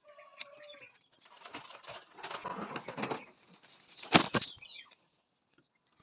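Kienyeji chickens stirring: a short call at the start, then a stretch of wing flapping and rustling. A sharp knock comes about four seconds in, followed by a few high chirps.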